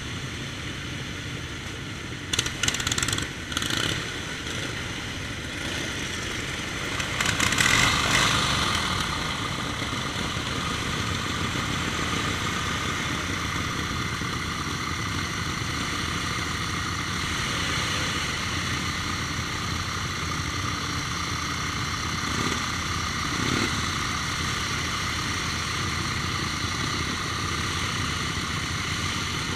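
Several antique motorcycle engines running and idling together, with a bike riding off. There are a few sharp, loud pops about two to four seconds in, and an engine swells louder around eight seconds as it revs up or passes close.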